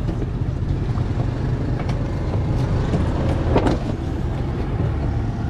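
An engine idling with a steady low rumble, with a few faint knocks of handling on top.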